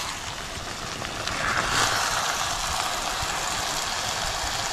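Chicken pieces in ground masala paste frying with a steady sizzle while a spatula stirs them around the pot.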